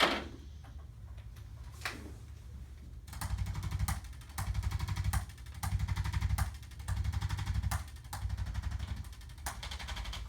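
Chiropractic adjusting instrument working along the spine: a sharp click at the start and another about two seconds in, then about six short bursts of rapid-fire tapping, each under a second long.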